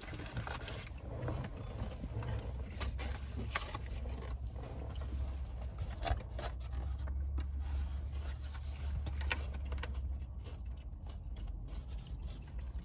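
Paper wrapping and packaging of a chicken sandwich rustling and scraping as it is handled and opened, with scattered short clicks, over a steady low hum.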